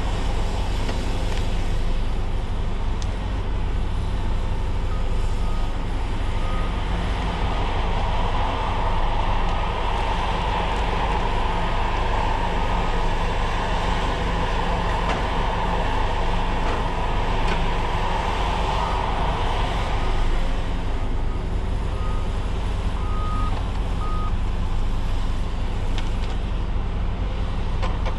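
Cat 568 shovel logger's diesel engine running steadily, with a louder, higher-pitched rush swelling through the middle and two short runs of beeps, one early and one near the end.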